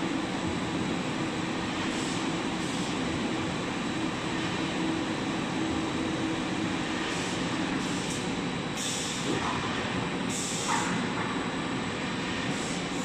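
Steady mechanical din of a veneer peeling production line running: motors, rollers and conveyors, with a low hum through the first half. Two short hissing bursts come about two-thirds of the way through.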